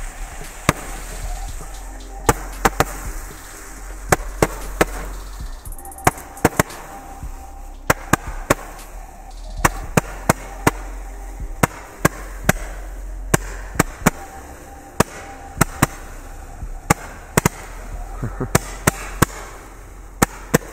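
Small ground firecrackers, three lit at once, going off in an irregular string of about thirty sharp cracks over a fizzing hiss of burning pyrotechnics.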